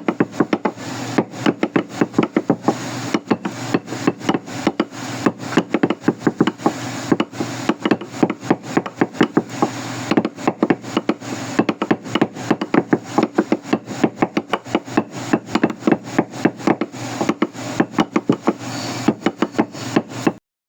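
Rapid, irregular hammer strikes on wood, several a second, stopping abruptly near the end.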